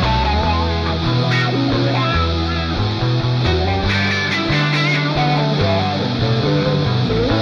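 Background rock music with electric guitar and bass.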